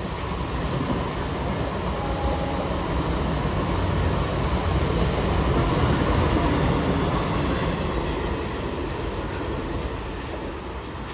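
Mumbai suburban local train, an electric multiple unit, running along the track. Its rumble grows louder to a peak around the middle, then fades away.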